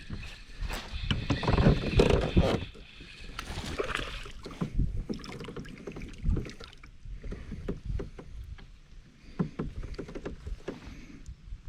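Handling noises on a fishing kayak: irregular knocks, rustles and water sounds, busiest in the first few seconds.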